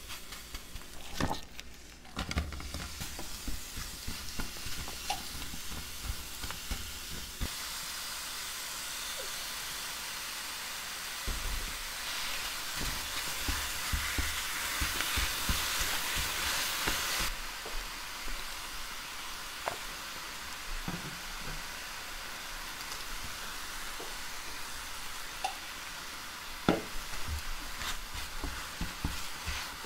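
Cut apples sizzling as they are stir-fried in a frying pan to drive off their juice, with occasional knocks and scrapes from stirring. The sizzle grows louder for several seconds in the middle, then settles back.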